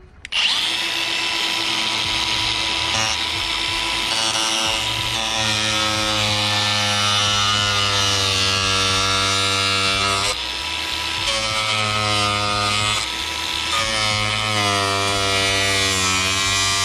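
A Milwaukee cordless cut-off grinder spins up about half a second in and cuts into a car seat's corroded backing plate. Its whine wavers in pitch as the disc bites, and it eases off briefly a couple of times in the second half.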